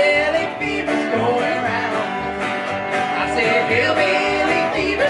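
Live band playing a song: upright double bass, electric guitar and acoustic guitar with a man singing. The bass steps between two low notes about twice a second.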